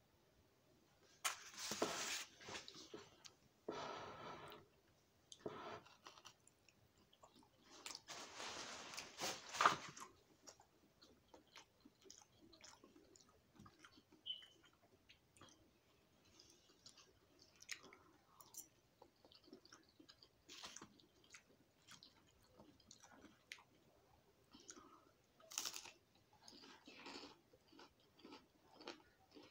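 A person eating bacon close to the microphone: a few loud bites and bouts of chewing in the first ten seconds and another near the end, with quieter chewing and small mouth clicks between.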